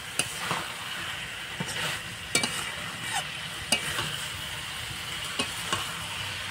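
Metal spatula stirring egg-cauliflower koftas through thick masala in a metal kadai, the masala sizzling steadily as it fries, with several sharp clicks of the spatula against the pan.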